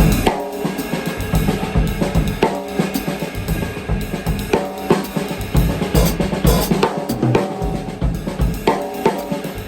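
Drum kit played in a steady groove, with bass drum, snare and cymbal strikes all through.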